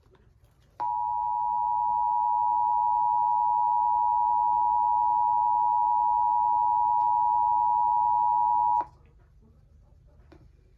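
Emergency Alert System attention signal: two steady tones sounding together as one harsh alarm tone, starting abruptly just under a second in, holding level for about eight seconds and cutting off sharply. It announces a required monthly test of the emergency alert system.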